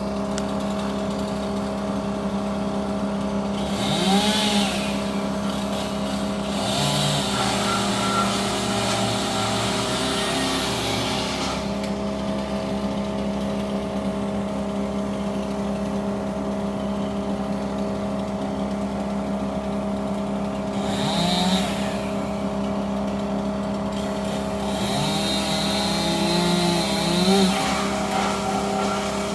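Tree-removal machinery running: a steady engine drone, broken by several louder spells of rising and falling, screeching machine noise as the work goes on.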